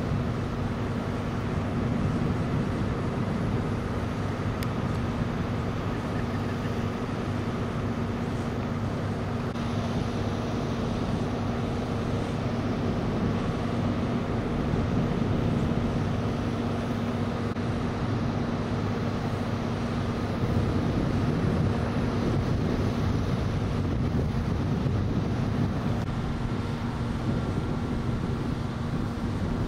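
A steady engine hum that holds one pitch throughout, with low wind rumble on the microphone.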